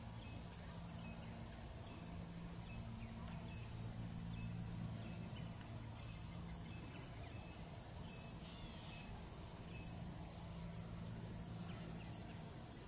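Quiet outdoor ambience: a steady high-pitched insect buzz with short faint chirps now and then, over a low steady hum.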